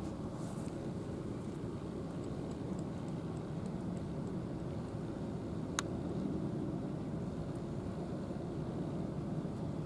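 Steady low rumbling outdoor background noise, with one sharp click about six seconds in.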